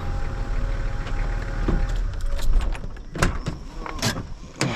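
A vehicle's engine and road rumble with a steady whine, easing off over the second half. Near the end come three or four sharp clicks and knocks.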